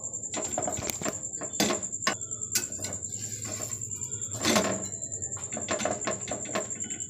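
Flat metal spatula scraping and tapping on a tawa while a paratha is pressed and flipped, with one louder knock about halfway through as the turned paratha and spatula come down on the pan. A steady high-pitched whine sounds throughout.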